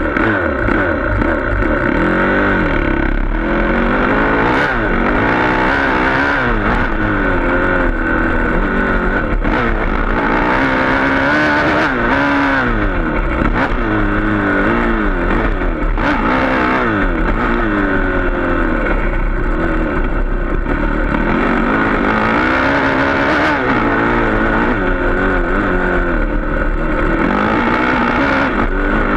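Dirt bike engine heard from on the bike itself, revving up and falling back over and over as the rider accelerates, shifts and rolls off through the turns of a motocross track.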